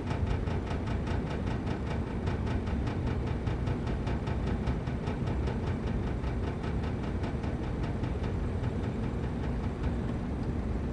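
Panasonic inverter split air conditioner's outdoor unit running with a steady low hum and a rapid, regular ticking or rattling of about six beats a second, weakening near the end. The ticking is the unexplained abnormal noise of the newly installed unit.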